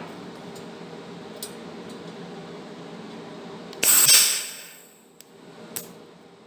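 A steady low hum, then about four seconds in a short, loud burst of hissing crackle from a MIG welder striking a brief tack weld. It fades over about a second, followed by a couple of light clicks.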